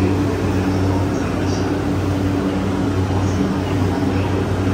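JR East E235-series electric train standing at a station platform with its doors open, its onboard equipment humming steadily in a few constant low tones over a background hiss.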